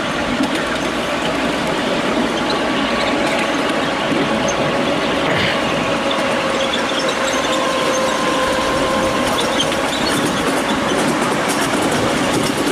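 Miniature railway train running along its track, heard riding in a carriage: a steady rumble and clatter of wheels on rail with a faint steady whine, and a few light ticks near the end.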